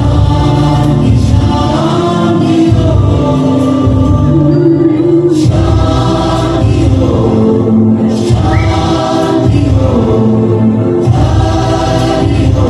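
Music with a group of voices singing together in chorus, loud and continuous.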